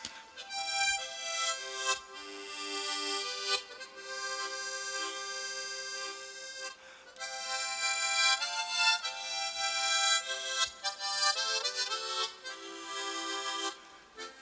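Four harmonicas held together in two hands and played at once, giving a slow melody with full chordal harmony under it. Notes are held in phrases, with brief breaks between them.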